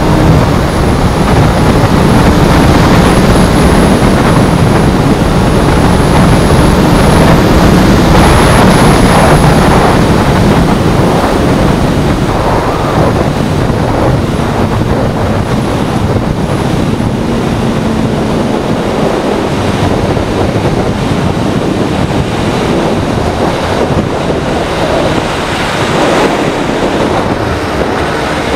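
Wind rushing over the microphone of a Honda CBR600F3 sport bike riding at speed, with the inline-four engine running underneath. The rush eases slightly after about ten seconds.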